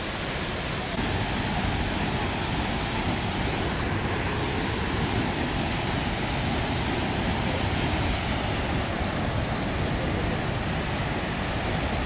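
Steady rushing of a waterfall pouring into a river pool, a little louder from about a second in.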